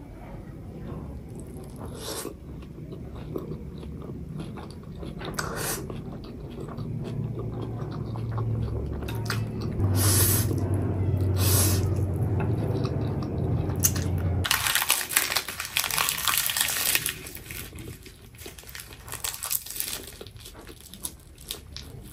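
Close-miked eating sounds: noodles being sucked in and chewed, with wet mouth noises. In the second half come a few seconds of dense, crisp crunching bites.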